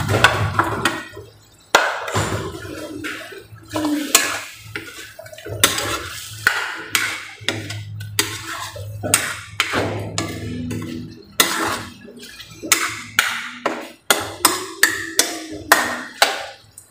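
Metal spatula scraping and knocking against a stainless steel wok as chicken pieces are stirred and turned, in repeated irregular strokes that come faster in the second half.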